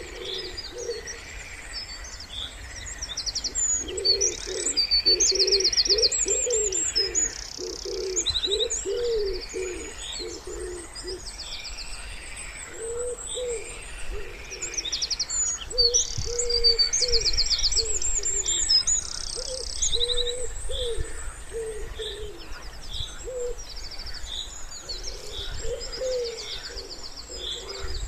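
Wood pigeon cooing in repeated phrases, with other songbirds chirping and trilling high above it.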